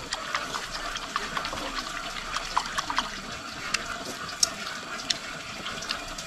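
Chopsticks stirring fresh blood mixed with water in a porcelain bowl for tiết canh. The liquid swishes, with light, irregular clinks and ticks of the chopsticks against the bowl.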